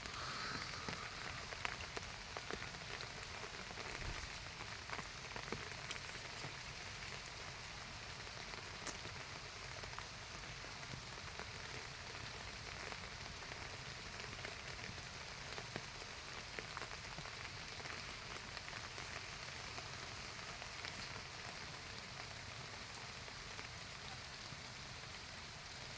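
A steady hiss with many scattered light ticks throughout.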